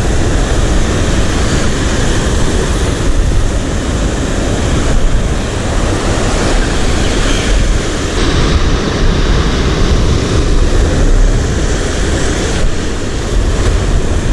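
Heavy wind buffeting the microphone, with waves washing on the shore underneath: a loud, steady rumble and hiss.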